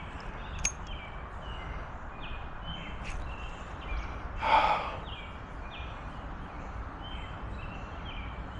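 Outdoor creek ambience: short high calls from a small animal repeat steadily about twice a second over a low wind rumble. About halfway through comes a brief breathy whoosh.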